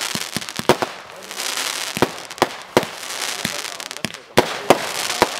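Fireworks International 'Warlord' firework barrage firing: a string of sharp bangs at uneven intervals, often less than half a second apart, over a steady hiss.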